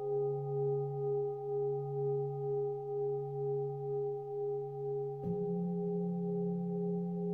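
Singing bowls ringing: several steady, overlapping tones with a slow, even wavering in loudness. About five seconds in, another bowl is struck and a new, slightly higher low tone joins.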